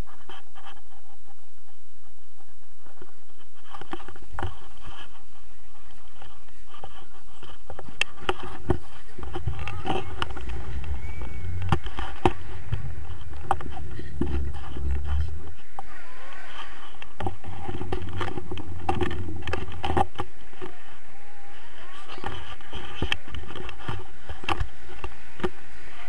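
Wind rumbling over the microphone of a handheld pole camera during a tandem paraglider takeoff run and lift-off, strongest through the middle, with many sharp knocks and scrapes from the camera pole and harness.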